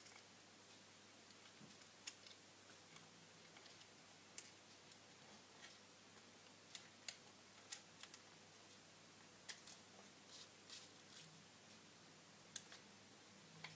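About a dozen sharp small clicks and taps at irregular intervals, over near-silent room tone: tools and small parts being handled while a smartphone is taken apart.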